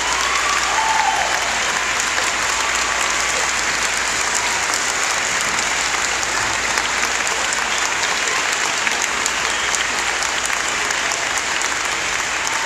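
Audience applauding: many hands clapping at once in a steady, dense stream.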